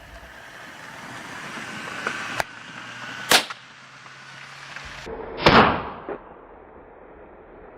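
Gunshots fired at wild boar: a lighter crack about two seconds in, then two loud shots about two seconds apart, the second followed by a short echo and a fainter report.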